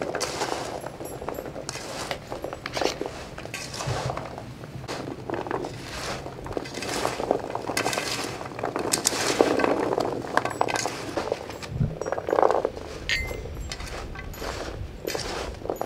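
Chopped raw vegetables (cauliflower florets, carrot, celery, peppers, herbs) tossed and mixed by hand in a large metal tray: an irregular crunchy rustling, with light clinks against the metal.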